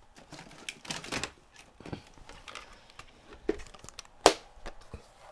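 Light handling noise: scattered small clicks and rustles, with one sharper click about four seconds in.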